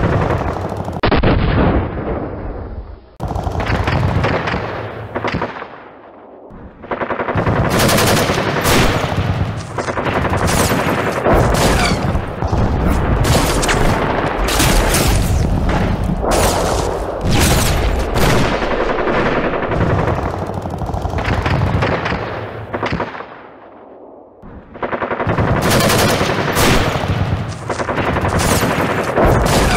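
Battle sound effects of sustained gunfire: rapid machine-gun bursts and shots crowding one another. The firing dies down twice, for a few seconds after about three seconds in and again briefly after about twenty-two seconds.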